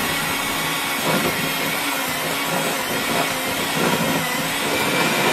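Electric hand mixer running steadily at high speed, its beaters whipping thick browned-butter and powdered-sugar icing in a glass bowl; it is switched off right at the end.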